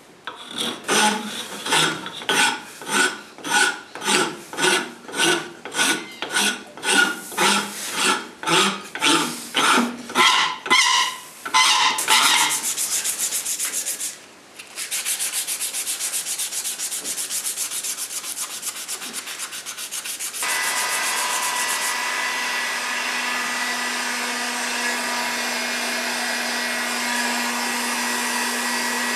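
Rasp strokes on a wooden sheoak hammer handle, about two a second, then steady hand sanding of the handle. About twenty seconds in, a heat gun starts blowing with a steady hum.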